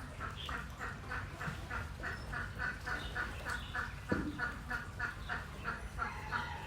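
A duck quacking in a rapid, even series of about four quacks a second, over a steady low rumble. One short louder sound cuts in about four seconds in.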